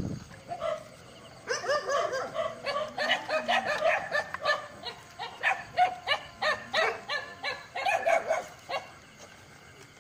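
A dog barking rapidly and repeatedly, two to three short barks a second, for about seven seconds, then stopping.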